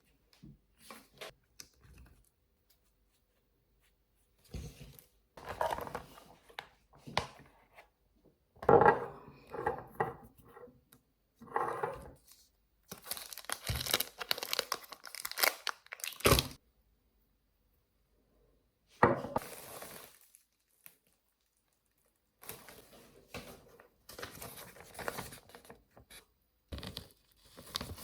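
Crinkling and tearing handling noises in irregular bursts with silent gaps between them, the loudest about nine seconds in.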